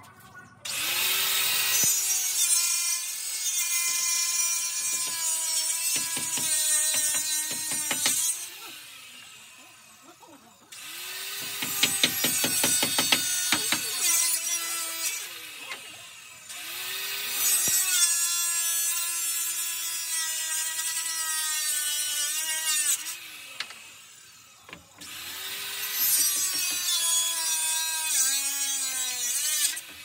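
Electric power saw cutting wood four times, each cut lasting about five to seven seconds. The motor spins up, runs at a steady pitch with a rasping hiss as the blade goes through the wood, then winds down in pitch when it is released.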